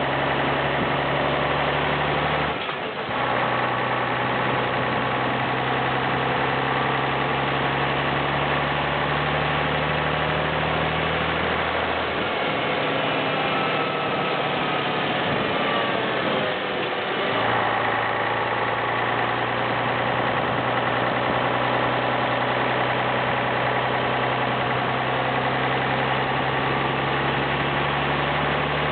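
Pegaso 310 hp truck's diesel engine running while the truck drives, a steady low drone. About three seconds in it dips briefly, and from about twelve seconds its low note fades and the pitch glides for several seconds before the full pull comes back sharply.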